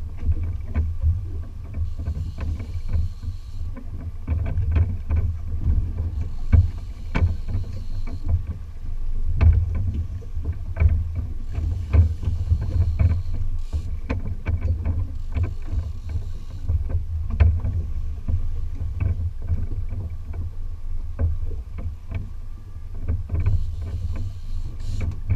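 A boat at sea: a steady low rumble with frequent knocks and thumps, as from waves slapping the hull and gear rattling on board. Short whirring spells come every few seconds.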